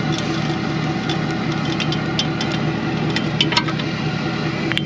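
Truck engine running steadily, heard from inside the cab, with scattered light clicks and rattles and one sharper click near the end.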